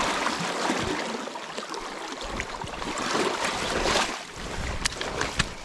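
Shallow, fast river running over gravel, with two short sharp clicks about five seconds in.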